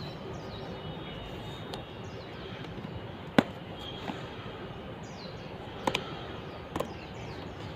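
Fingers picking and scratching at packing tape on a cardboard shipping box, with a few sharp clicks against the cardboard, the loudest about three seconds in.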